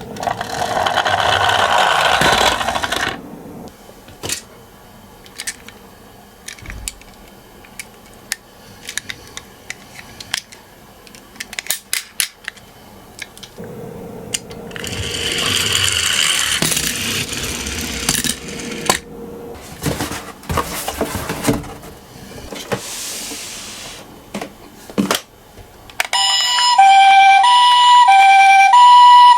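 Toy minicars rolling and rattling along a slope, with scattered sharp clicks between runs. Near the end a toy ambulance's electronic two-tone siren starts, loud and even, switching back and forth between two pitches.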